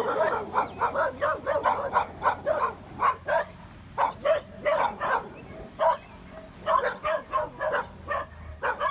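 A pack of several small-to-medium dogs barking repeatedly at once, short overlapping barks coming several a second, with a couple of brief lulls.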